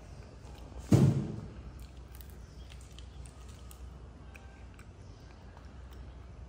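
A single loud thump about a second in, dying away within half a second, then faint scattered small clicks over a low steady hum.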